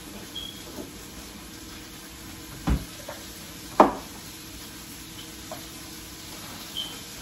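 Kitchen cupboard opened and things inside handled: two sharp knocks about a second apart, a few lighter clicks, and two brief high squeaks. Under it a steady sizzle from a pan frying on the gas stove.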